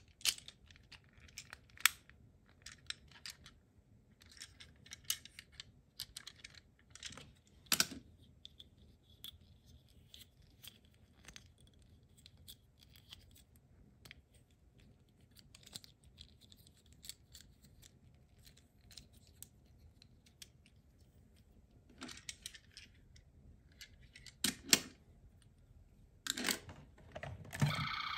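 Small plastic clicks and rattles of a transforming toy ambulance robot's parts being folded and snapped into place by hand. The clicks come in irregular clusters, thin out for a long stretch in the middle, and pick up again with a few sharper snaps near the end.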